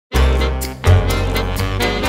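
Intro theme music with a strong bass line and drum hits, starting suddenly right at the beginning.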